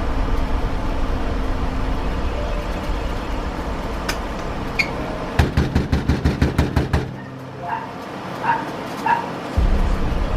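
Pomeranian puppy giving several short, high yips in the second half, over a low steady rumble that cuts out about seven seconds in. Just before the rumble stops there is a quick run of clicks.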